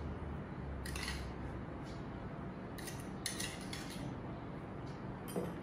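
A metal spoon clinking lightly against ceramic bowls as sugar is spooned from a small bowl into a mixing bowl, a few scattered clinks over a low steady room hum.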